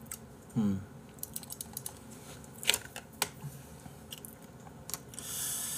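Quiet eating noises: scattered small clicks of chopsticks against a plastic food tray and mouth sounds while raw beef is picked up, with a short low grunt about half a second in.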